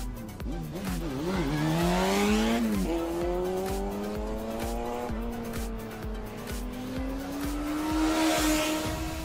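Race car engine sound effect revving: the pitch wobbles, climbs, drops about three seconds in, then climbs slowly again, with tire squeal twice. Background music with a steady beat plays underneath.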